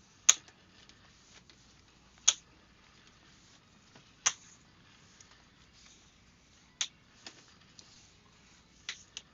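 Sharp single clicks over a quiet background: three evenly spaced about two seconds apart, then a few more at uneven intervals near the end.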